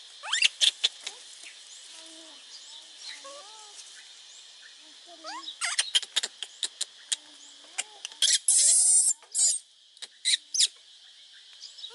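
Baby macaques calling: short rising coos and squeaks scattered throughout. A cluster of sharp clicks comes about halfway through, and a loud harsh rasp lasting about a second follows soon after.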